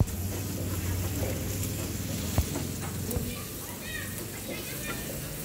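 Chopped aromatics and chili sizzling in hot oil in a wok while a spatula stirs them, with one sharp tap of the spatula on the pan about two seconds in. A low steady hum runs underneath.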